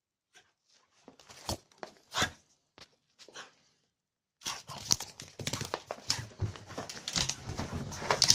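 A French bulldog scuffling: a few separate scrapes and knocks, then a continuous rustling scuffle with many small clicks from about four seconds in.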